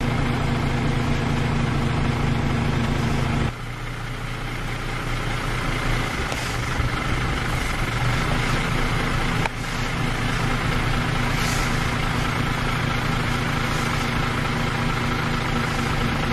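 Truck engine idling steadily, powering the truck-mounted crane that holds the shell, with two abrupt drops in level about three and a half and nine and a half seconds in.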